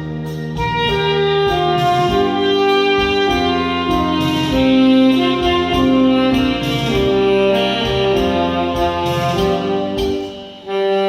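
Instrumental music: a solo wind instrument plays a slow song melody in long held notes over a backing track, pausing briefly between phrases near the end.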